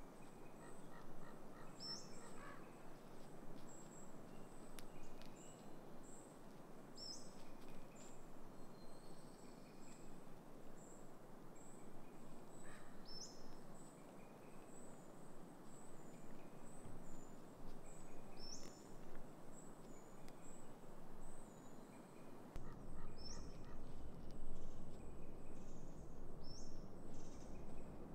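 Woodland ambience at dusk: a steady background rush, with a short high call repeated every few seconds and a fine, high, continuous chirping. A low rumble comes in about three-quarters of the way through.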